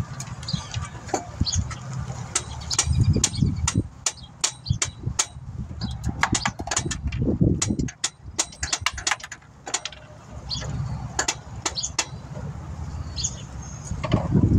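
Metal clinks, clicks and knocks of hand tools, bolt and alternator bracket, irregular and scattered, as the alternator's top bolt is worked into position by hand. A low rumble runs underneath.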